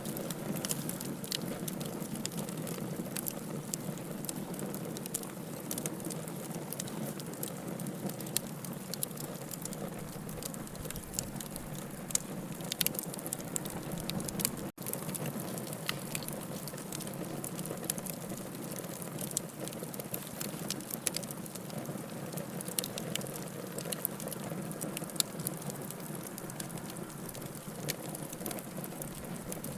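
Wood bonfire burning, with a steady low rush of flames and frequent sharp crackles and pops of the wood. The sound drops out for a split second about halfway through.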